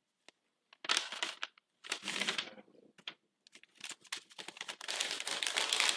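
Paper being handled close to the microphone: a bid envelope torn open and its sheet rustled and unfolded, in short crackly bursts that grow into a longer run of crinkling near the end.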